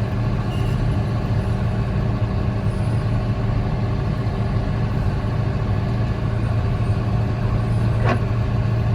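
Diesel engine of a John Deere snow-clearing machine running steadily, with a brief sharp click about eight seconds in.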